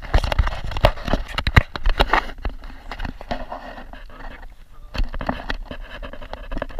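Wind buffeting the microphone of a camera mounted under a model airplane, with irregular knocks and scrapes as the camera and airframe shift on the grass; the knocks are densest in the first two seconds.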